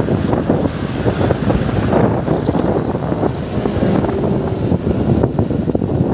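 Wind buffeting the microphone of a bicycle rider's camera while riding along a road: a steady, rumbling rush of noise.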